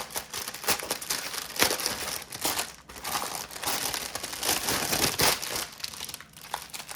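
Plastic packaging of a pack of diamond-painting drill bags crinkling irregularly as it is opened and handled.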